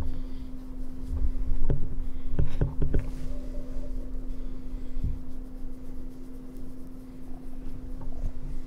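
Close-up rustling and bumping as a tabby kitten rubs against the camera and a hand strokes its fur, with several knocks about one to three seconds in and another near five seconds, over a steady low hum.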